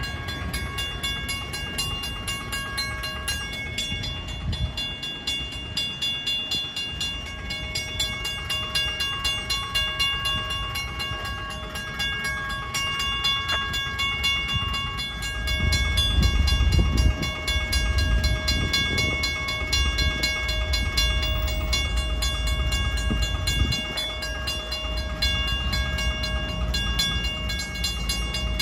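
Railroad crossing warning bell ringing continuously, a fast, steady clanging held on several high tones, with the gates down and no train at the crossing: the signal is malfunctioning and stuck activated. A low rumble runs underneath and gets heavier from about halfway through.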